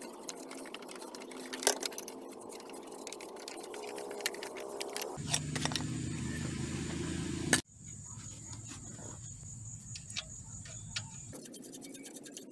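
Light metallic clicks and clinks of tools and parts being handled while an engine mount is refitted, with a low steady hum joining in about halfway and a brief cut-out a little later.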